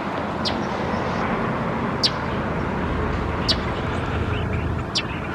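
Steady outdoor rushing noise with a small bird giving a short high chirp four times, about a second and a half apart.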